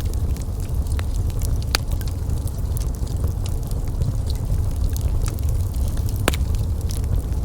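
Wood fire burning in a fireplace: a steady low rumble of flames with scattered small crackles and two sharper pops, about two seconds in and again near the end.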